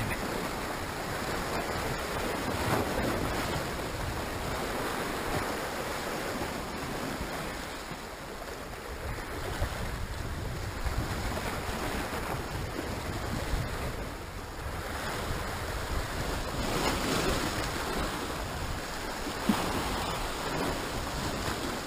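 Sea waves washing and breaking against the rocks below, a steady rush of surf that swells louder a few seconds in and again near the end.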